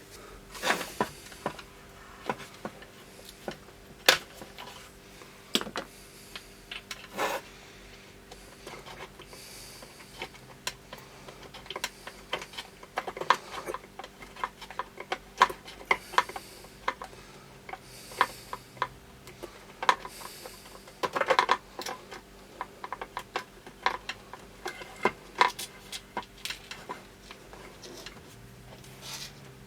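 Irregular clicks, taps and short scrapes of hands and small tools working a control knob and the circuit board loose from a soldering station's case, over a faint steady hum.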